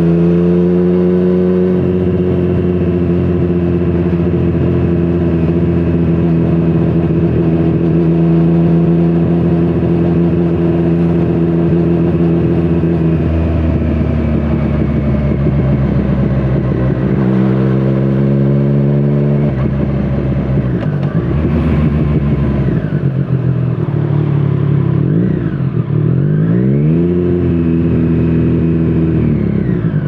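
Triumph Street Triple 765RS inline three-cylinder engine through a Scorpion Serket Taper carbon exhaust, heard from the rider's seat. It holds steady revs for about thirteen seconds, then the revs climb briefly, and over the last ten seconds they fall and rise several times as the throttle is rolled off and back on.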